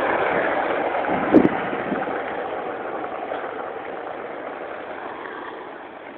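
Skateboard wheels rolling on asphalt: a steady rolling noise that gradually fades away, with one short knock about a second and a half in.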